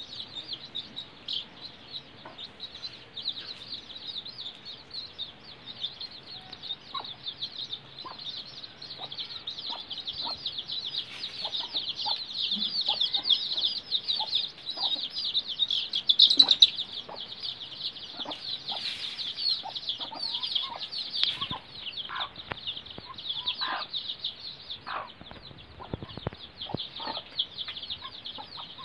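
A brood of young desi chicks peeping rapidly and without pause, the high peeps overlapping, loudest about halfway through. Occasional lower clucks are mixed in.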